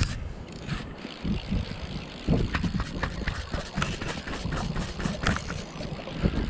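Wind buffeting the microphone in irregular gusts, with many short clicks and knocks starting about two seconds in.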